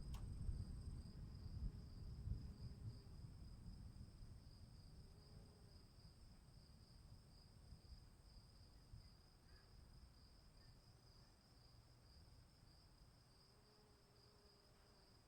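Crickets chirping in a steady, fast-pulsing trill, with a low rumble underneath that fades away over the first several seconds.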